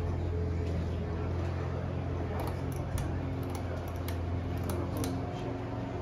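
Ceiling fan running at speed, a steady low hum. Light, sharp clicks come in about two seconds in and continue through the middle. The hum eases slightly near the end.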